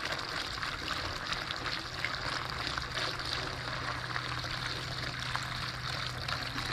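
Gasoline pouring in a steady stream from a plastic gas can through a funnel into a portable generator's fuel tank, a continuous trickling splash.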